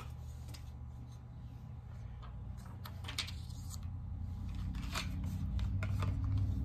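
Cardboard and plastic packaging of a makeup palette being handled and opened by hand: scattered light clicks, snips and rustles, over a low hum that grows louder near the end.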